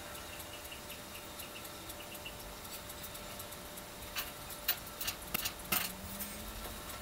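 Quiet room tone with a few soft, short clicks and ticks, most of them between about four and six seconds in.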